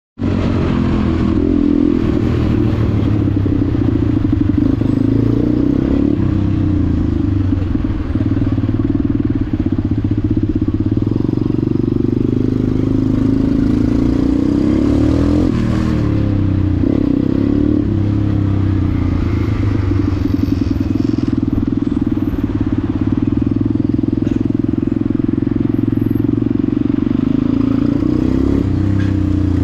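KTM supermoto motorcycle engine running at low speed while filtering through slow traffic, the revs rising and falling a little around the middle.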